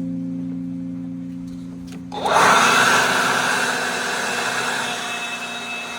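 A guitar chord from background music fades out. About two seconds in, a loud, steady rushing noise with a faint whine starts abruptly and runs to the end.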